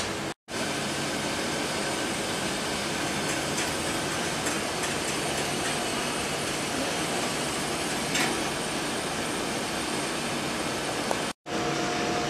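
Steady mechanical hum and hiss of a running twin-screw extruder line, with a few faint ticks. It cuts out twice for a split second, near the start and about a second before the end.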